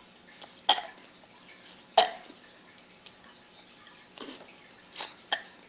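A girl's short, separate burps, about five, unevenly spaced.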